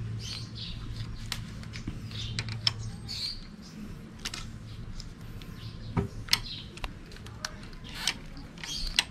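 Light, irregular clicks and small metallic taps of hand tools and brake parts being handled while a brake hose fitting is positioned on the master cylinder. A low steady hum fades out a few seconds in.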